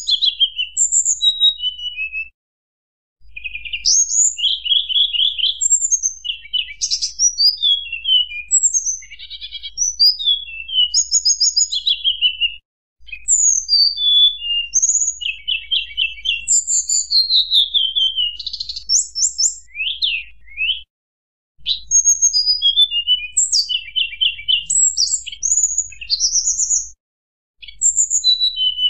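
Tledekan gunung, a songbird of the flycatcher family, singing a fast, varied, high-pitched song of whistles, trills and falling notes. The phrases are cut by a few brief total silences.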